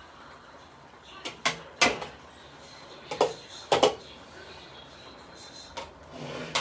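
A cooking utensil knocking and scraping against a frying pan as beef and bell pepper stir-fry is stirred: a few sharp knocks in two clusters and one more near the end, over a faint steady background.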